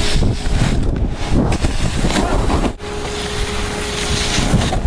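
Wind rushing over the microphone, with the scrape and hiss of a snowboard sliding on snow and a faint steady hum in two stretches.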